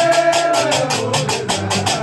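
Gnawa music: a man's voice holds a long sung note that sags lower about half a second in, over deep, shifting bass notes and a fast, even clatter of percussion.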